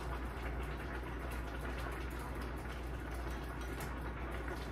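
Soft, steady simmering of a pot of vegetable and Malabar spinach stew, with a constant low hum underneath.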